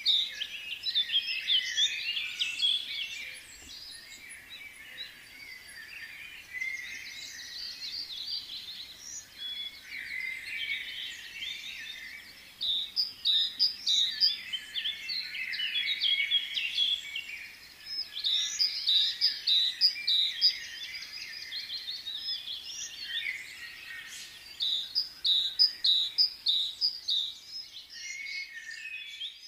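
A chorus of many small birds chirping, with short high calls overlapping one another and coming in busier and quieter spells.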